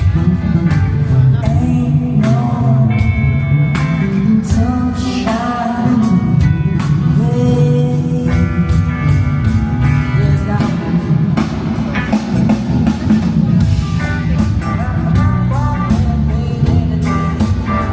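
Live rock band playing, with guitar over drums.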